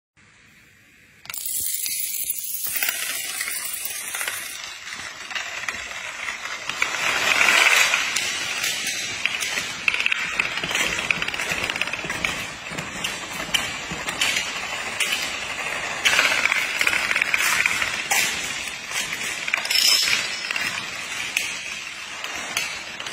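Rapid, continuous clicking clatter of a chain reaction toppling one piece after the next: standing coins, then playing cards and small plastic pieces falling onto a tiled floor. It starts about a second in and swells louder a few times as more pieces fall together.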